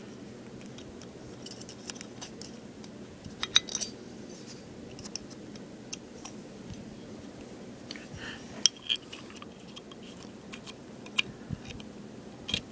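Scattered light metallic clicks and clinks of small pistol parts being handled while a Glock 23 slide is detail-stripped, as the firing pin safety block and its spring come out. A few sharper clicks stand out about three and a half seconds in, around nine seconds and near the end, over a faint steady hum.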